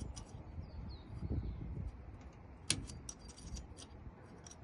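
Small metallic clicks and ticks of lockpicking tools working inside a mailbox lock cylinder, with one sharper click about two and a half seconds in.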